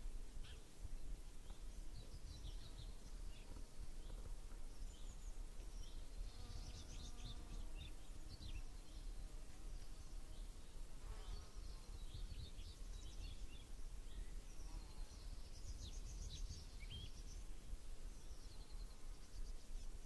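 Natural outdoor ambience: several birds chirping and trilling with short, high calls, over a faint low rumble. An insect buzzes past from about six seconds in, for a couple of seconds.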